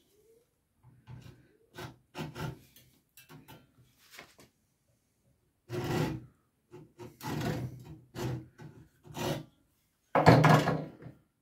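Hand hacksaw sawing into a blue cylindrical rechargeable battery cell held in a small bench vise: a series of short, uneven strokes, faint at first and louder from about halfway, the loudest near the end.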